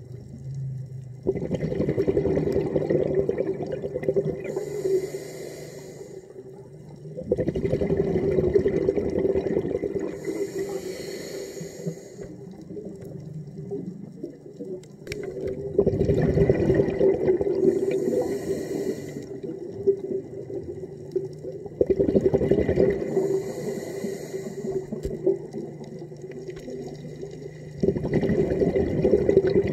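Diver breathing underwater through a regulator: about five slow breaths, one every six seconds or so, each a loud rush of air followed by a hiss of bubbles.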